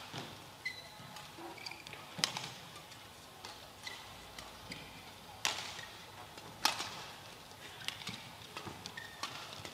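Badminton rally: rackets striking a shuttlecock, a sharp crack every one to three seconds, with short high squeaks of court shoes on the floor between the hits.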